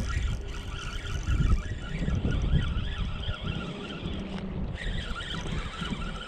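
Wind buffeting the microphone in gusts, with a faint steady high whine that drops out briefly near the end.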